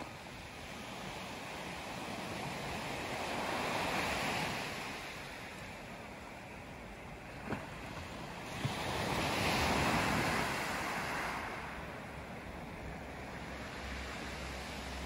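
Small waves breaking and washing up a pebble beach: two surges of surf about five seconds apart over a steady wash of sea noise, with some wind on the microphone.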